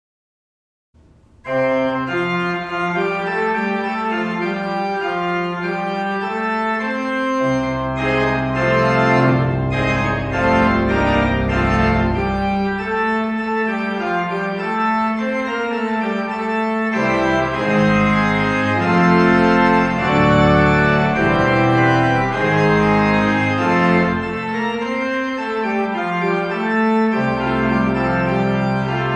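Organ playing slow, held chords. It starts about a second in, and deep pedal bass notes join about seven seconds in.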